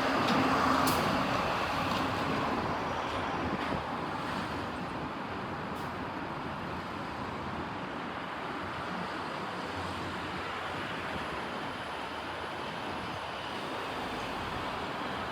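Steady road traffic noise, with a vehicle passing loudest in the first second or two before it settles to an even hum of traffic.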